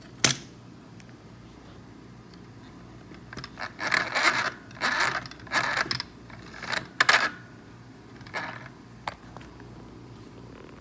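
Small plastic mini sewing machine running in several short bursts of under a second each, stitching through fabric. A sharp click comes just before the bursts.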